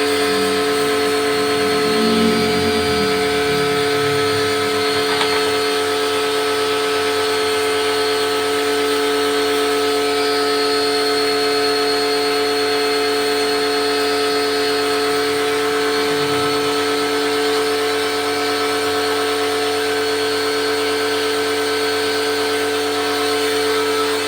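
An electric motor running steadily with a constant whine, unchanging throughout.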